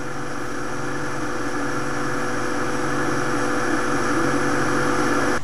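Steady mechanical hum with a few held tones, like a motor or fan running, growing slightly louder and cutting off suddenly at the end.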